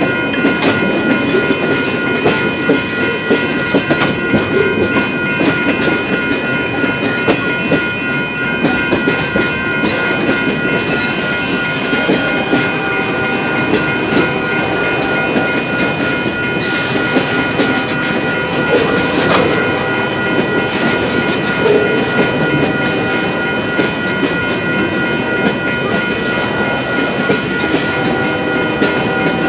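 BNSF freight train cars rolling steadily over the grade crossing, wheels clicking over the rail joints in a continuous clickety-clack, with the crossing's warning bell ringing steadily on top.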